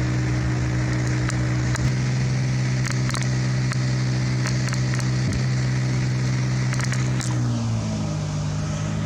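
A large engine on the tree crew's machinery running steadily, with scattered sharp clicks and crackles over it. Its pitch sags slightly about three-quarters of the way through.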